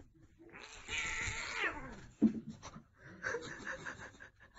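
A cat yowling: one long drawn-out caterwaul that falls in pitch at its end, followed by a sharp thump just after it.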